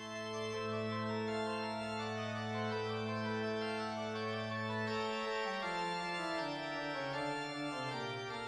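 Background music of slow, held keyboard chords. A low note sustains for about five seconds, then the bass steps down in pitch note by note.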